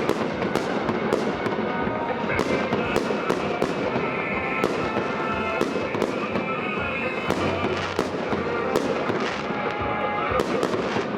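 Festive fireworks display: an uneven series of sharp bangs, roughly two or three a second, over a continuous crackling rumble of bursting shells.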